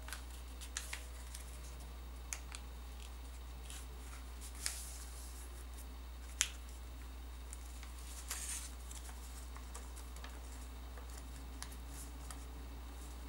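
Paper being folded and creased by hand: scattered short crinkles and taps of the sheet, the sharpest about six seconds in, over a steady low hum.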